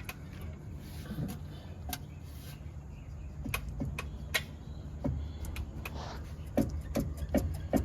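Irregular clicks and knocks from a worn front steering and suspension joint on a 2014 Dodge Charger Pursuit as it is pushed in and out by hand, coming more often from about three and a half seconds in: the play of a worn-out part.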